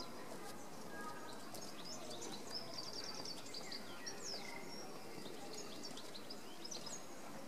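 Small birds chirping and twittering: many short, high calls, with a brief rapid trill about three seconds in, over a steady low background murmur.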